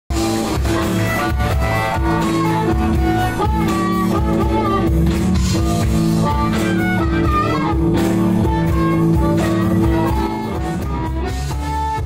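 Live rock band playing: electric guitar over drums and bass.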